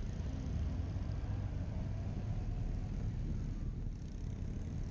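Honda GL1800 Gold Wing's flat-six engine running at steady road speed, a continuous low drone mixed with road noise.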